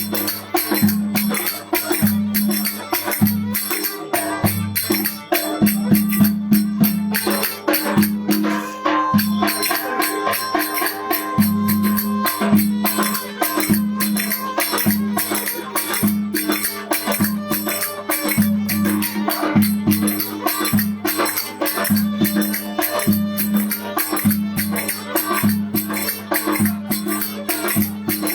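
Lively folk wedding dance music: a fast, even rhythm of sharp strokes over a steady low drone.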